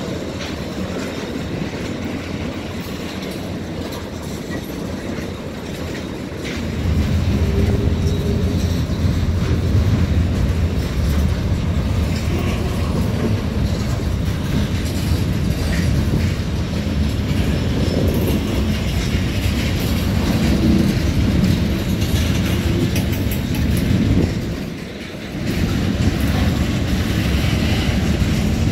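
Freight train of boxcars rolling past: steel wheels rumbling and clicking over rail joints, growing louder about seven seconds in, with a brief lull near the end.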